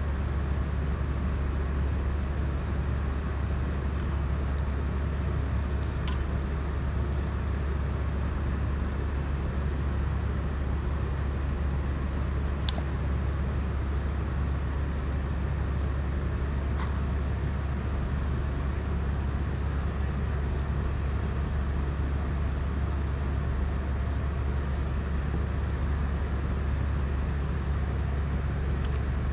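A steady low hum that stays constant throughout, with a few faint sharp clicks from handling small parts at a workbench.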